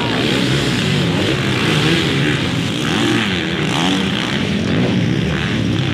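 Several dirt bike engines revving on a motocross track, their pitch rising and falling over and over as the riders work the throttle.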